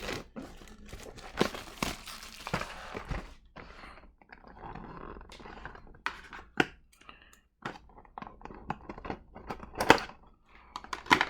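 Things being handled and set down on a table: scattered knocks and thunks with some rustling and crinkling between them, the loudest knock near the end.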